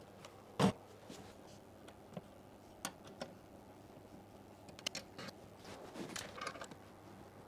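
Scattered knocks and clicks of hands working on a hard-shell top case being fitted to an electric scooter's rear rack. The loudest knock comes about half a second in, and a small cluster of clicks follows around five to six and a half seconds in.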